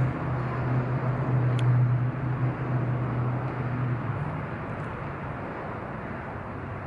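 A vehicle engine running with a steady low hum over outdoor background noise, fading about four seconds in.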